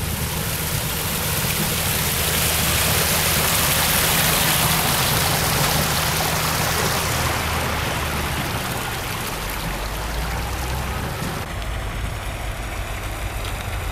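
Spring floodwater rushing through a channel it has cut under the road: a steady, loud rush of water, peaking a few seconds in, with a low steady hum beneath it. About 11 seconds in, the rush drops away and wind rumble on the microphone takes over.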